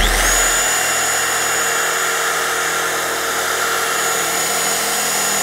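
Hand-held dual-action polisher with a black finishing foam pad running on a car's painted rear bumper, giving a steady electric-motor whine. It spins up right at the start, then holds a constant speed. This is the final refining stage of machine polishing, which takes off the haze left by cutting.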